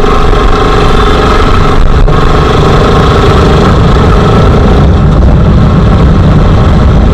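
Motorcycle engine running steadily while riding along a road, under a heavy low rumble of wind noise on the microphone.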